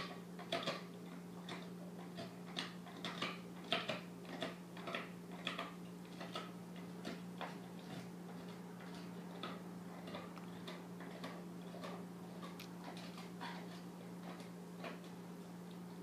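A yellow Labrador gnawing a hard chew bone, making irregular crunching clicks and cracks that come thick and fast at first and thin out over the second half. A steady low hum runs underneath.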